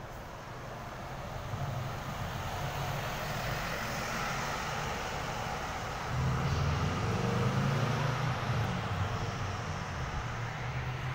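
City bus driving close past and pulling away, with a car also passing: engine hum and road noise build up, are loudest a little past halfway, and ease near the end.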